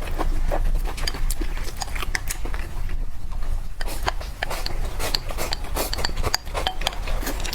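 Close-miked eating sounds: irregular sharp clicks and crunches of chewing food, with the light clink of utensils against dishes.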